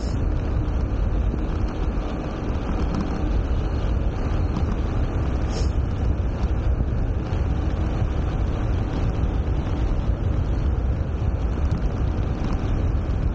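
Wind buffeting an Insta360 ONE X2 action camera's microphone as a bicycle descends a mountain road at speed: a steady, loud low rumble of rushing air.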